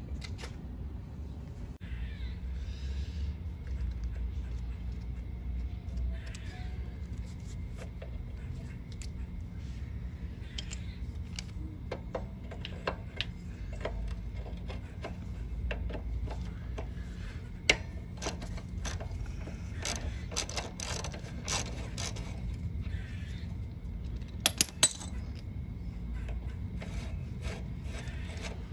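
Scattered metal clicks and clinks of a socket wrench and adjustable wrench working a rusty nut and bolt at the rear wheel's brake arm of a 1968 Honda CT90, thickest in the second half, with a few sharp clinks near the end, over a low rumble.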